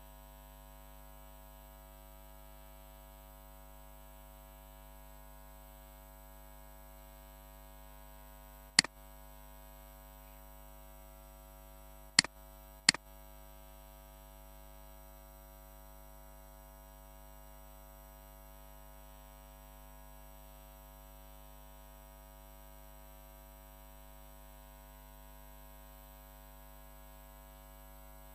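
Steady electrical mains hum, broken by three sharp clicks of a computer mouse: one about nine seconds in, and two close together a few seconds later.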